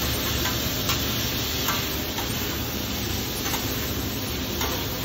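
Food sizzling on a flat-top griddle, with irregular light clicks and scrapes of a metal spatula against the griddle.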